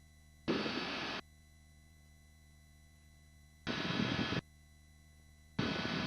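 Helicopter cabin noise let through the headset intercom in three short bursts of under a second each. Each burst switches on and off abruptly as the voice-activated microphone opens and closes. Between the bursts there is only a faint steady hum.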